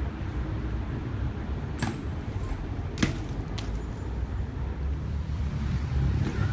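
Street ambience: a steady low rumble of city traffic, with a few short sharp knocks from a BMX bike about two and three seconds in.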